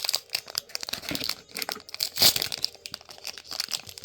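Foil wrapper of a Pokémon card booster pack being handled and torn open by hand: irregular crackles, loudest a little past two seconds in.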